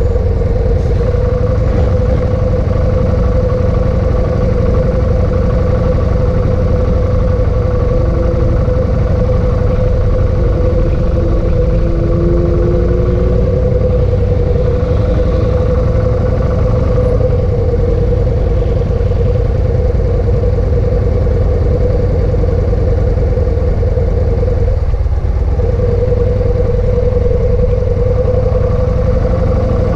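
Motorcycle engine idling steadily at a constant pitch while the bike stands still.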